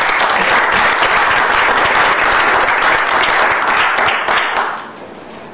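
Small audience applauding with hand claps, dying away about four and a half seconds in.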